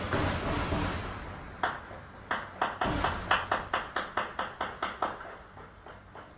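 Celebratory gunfire fired into the air, heard from inside a house: a run of about a dozen sharp shots, roughly four a second, each with a short echo, starting about a second and a half in.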